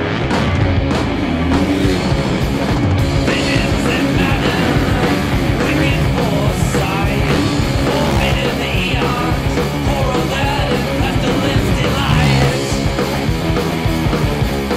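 Loud rock music soundtrack, steady throughout.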